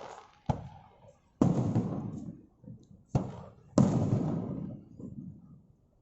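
Aerial firework shells bursting: four sharp booms, a lighter one about half a second in, then three heavy ones, each trailing off in a rumbling echo over a second or so.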